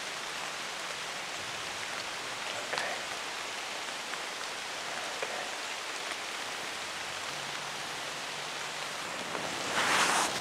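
Steady, even hiss of outdoor ambience. A louder swell of noise comes about half a second before the end.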